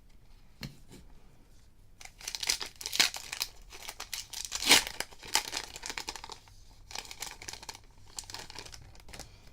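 A baseball card pack's plastic wrapper being torn open and crinkled: a dense run of crackling from about two seconds in to about seven seconds in, sharpest around three and five seconds in.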